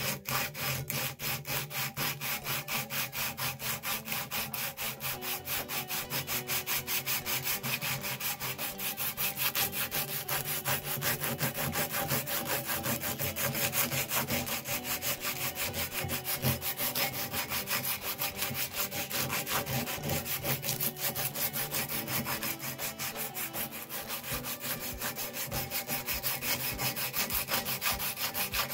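Sandpaper wrapped around a rod rubbing back and forth through the steel eye of an axe head, sanding the inside of the eye in fast, even strokes.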